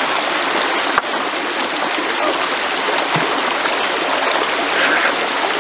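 River water flowing steadily, a constant even hiss, with a brief click about a second in.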